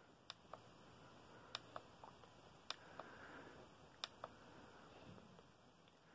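Small push-button clicking, pressed and released four times at a steady pace of roughly once every second and a bit, each press a sharp click followed by a softer release click, as the LED face mask is switched from one face to the next. Otherwise near silence.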